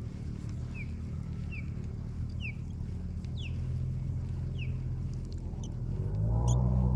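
Low, steady ambient synth background music that changes chord partway through and swells with a rising sweep about six seconds in. Over it is a string of short, high falling chirps, roughly one a second, during the first five seconds.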